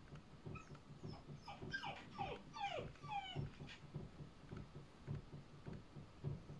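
A dog whining: about two seconds in, a quick string of short whimpers, each falling in pitch, over a faint low tapping that keeps repeating.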